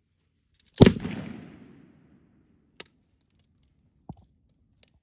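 A single loud report from a 7.62 mm M240B machine gun, its echo dying away over about a second. Two sharp clicks follow a couple of seconds later.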